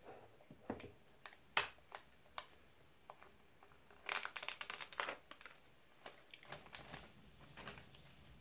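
Thin plastic shrink-wrap crinkling and tearing as it is pulled off a sealed iPhone box. Scattered crackles and light taps, with a dense stretch of crinkling about four seconds in.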